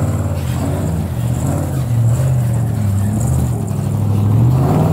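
Rock-crawling buggy's engine working at low revs as it climbs over boulders. It runs steadily with small changes in pitch, and the revs rise near the end.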